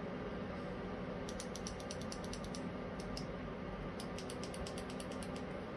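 Small plastic buttons on an LED ring light's inline remote clicked repeatedly to step through brightness and colour settings. There is a run of quick faint clicks about a second in, a single click near the middle, and another run about four seconds in.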